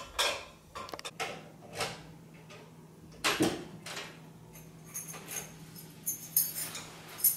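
A series of irregular knocks and clatters at a door, with keys jangling near the end, as the front door is worked open.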